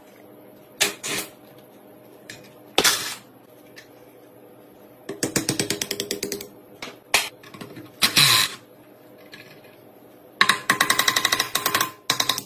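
Small hammer striking a rusty cast-iron water pump body and its pipe fitting: single knocks, and twice a fast run of rapid metallic taps. The tapping works the rust-seized fitting loose from the pump.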